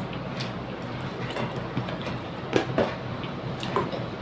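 Hand-eating sounds: a few short wet mouth clicks and smacks as she chews a mouthful of rice, the strongest a pair a little past halfway, over a steady background rumble.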